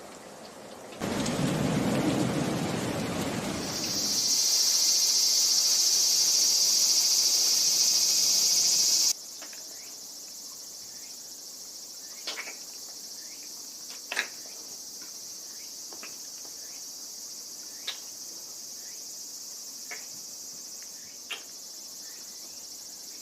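A loud rushing burst about a second in, then insects chirring loudly and steadily. The chirring drops to a lower level about nine seconds in and goes on with a few sharp ticks scattered through it.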